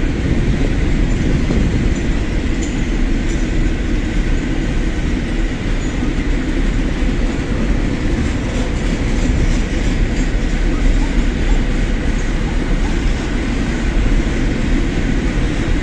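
Container freight train passing close by, its wagons' wheels rolling over the rails in a steady rumble.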